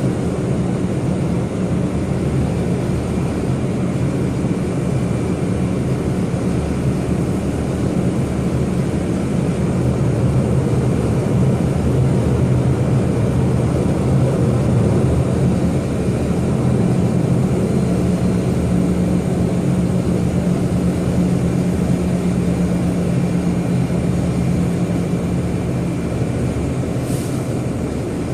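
Jet airliner engines running steadily, a constant low hum with no rise or fall in pitch.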